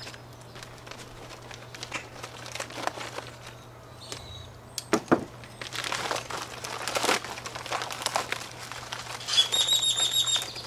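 Clear plastic packaging crinkling and rustling in bursts as it is handled and pulled open around a new head gasket. Near the end a bird calls in a quick, high trill of chirps lasting about a second.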